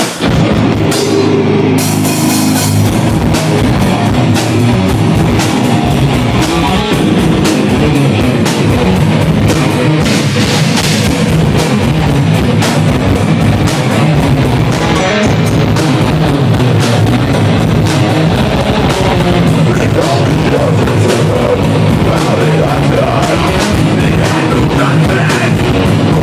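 Live heavy metal band playing loud and without a break: drum kit and electric guitar.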